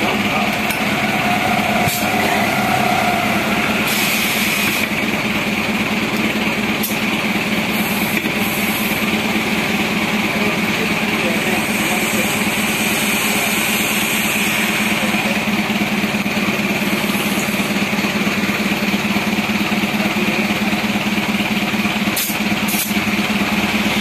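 A motor runs with a steady hum while a tire is inflated through an air-hose inflator chuck on its valve stem, with short hisses of air, the strongest about four seconds in, and a few sharp clicks.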